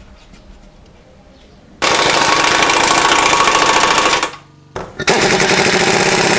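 Impact wrench running in two long bursts, the first starting about two seconds in and the second about five seconds in, tightening the bolts of a newly fitted lower control arm.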